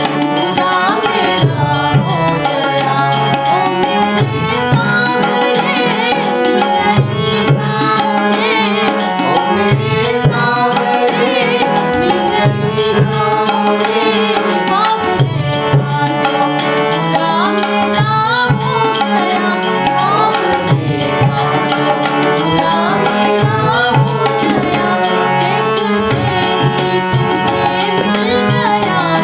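A woman singing a Hindi devotional bhajan, accompanied by a harmonium's sustained reed chords and a tabla pair keeping a steady rhythm.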